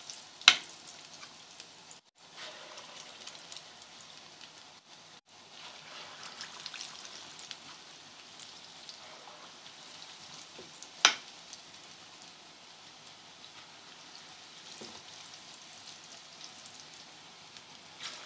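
Small spoonfuls of besan (gram-flour) pakora batter frying in hot ghee in a frying pan: a steady sizzle and crackle. Two sharp taps stand out, about half a second in and again about eleven seconds in.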